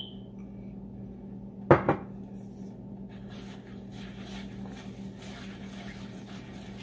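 A single sharp knock of kitchenware about two seconds in, then a silicone spatula stirring thick buffalo sauce in a wok, a soft scraping and swishing, over a steady low hum.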